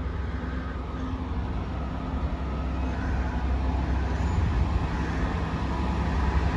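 Class 66 diesel locomotive approaching at the head of a freight train, its two-stroke EMD V12 engine running with a low steady hum that grows slowly louder as it nears.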